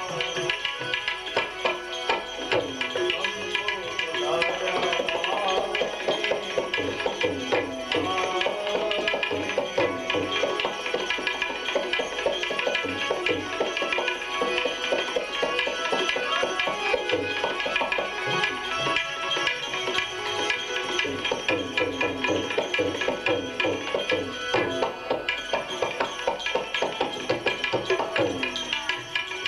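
Live devotional bhajan music: tabla keeping a fast, steady rhythm under a melody that bends up and down in pitch.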